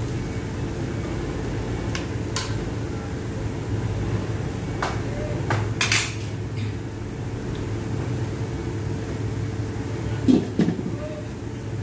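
Metal cookware clinking: a spoon and an aluminium wok knocked a few times, the sharpest clinks about six seconds in and two duller knocks near the end, over a steady low rumble.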